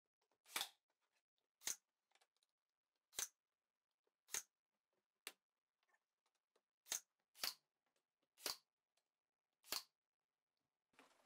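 Cordless battery-powered brad nailer firing brad nails into door trim: nine sharp shots, roughly one a second, unevenly spaced.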